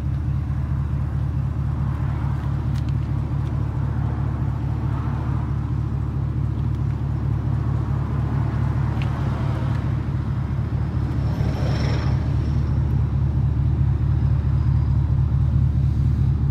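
Toyota 22R four-cylinder engine with a Hooker header, idling steadily with a deep, even rumble.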